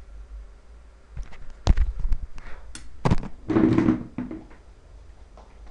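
Handling noise at a computer desk: two sharp knocks and a few fainter ticks, with a short rustle about three and a half seconds in.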